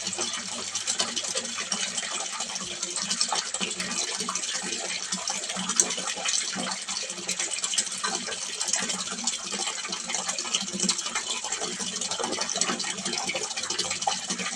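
Water splashing steadily into a small fish pond, a continuous gushing splash with no pauses.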